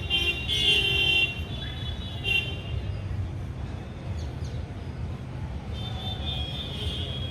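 Vehicle horns honking over a steady low rumble of street traffic: a loud blast in the first second or so, a short toot about two seconds in, and a fainter, longer one near the end.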